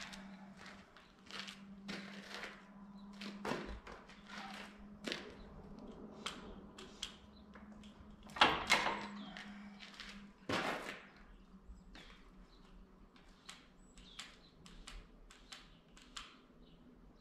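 Scattered knocks, clicks and clanks of metal parts being handled on a tractor's front loader, the loudest about eight and a half seconds in and another strong one about two seconds later, over a faint steady hum.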